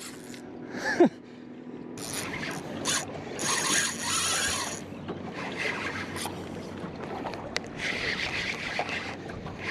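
Spinning reel's drag buzzing in bursts as line is pulled off by a hooked diamond trevally making a run.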